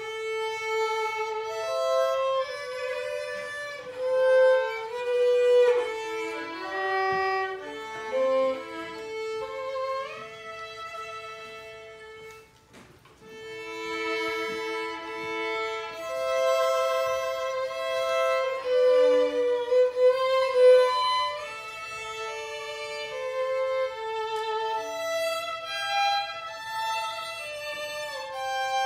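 Two violins playing an unaccompanied duet: two overlapping melodic lines of held notes with vibrato. There is a short pause about twelve seconds in, then the playing resumes.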